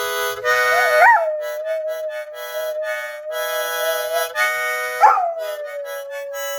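Harmonica played in chopped chords while a dog howls along with it. The howl swoops up and down about a second in and again near five seconds, then holds one long note.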